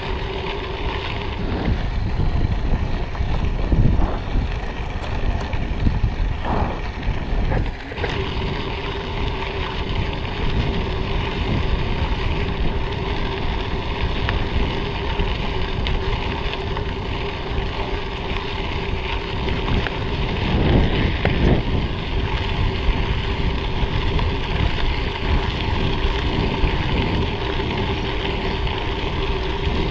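Wind rushing over the microphone and bicycle tyres rolling along a rail-trail surface while riding, with a constant low hum underneath. The rumble swells briefly a little past two-thirds of the way through.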